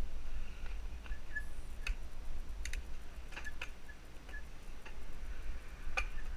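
Mountain bike rolling on tarmac, heard through a GoPro: a steady low rumble with scattered sharp clicks and ticks from the bike, and a louder click near the end.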